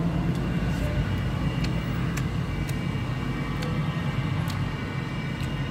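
Steady low engine hum of street traffic, with a few faint, sharp clicks scattered through it.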